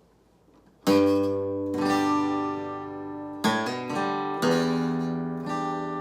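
Acoustic guitar strumming a few chords about a second in, each chord left to ring out, as the opening of a song.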